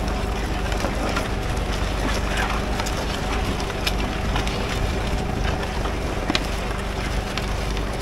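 Vintage tractor engine running steadily under load while pulling a mounted plough, with scattered sharp clicks and knocks from the plough working through the soil. Wind rumbles on the microphone.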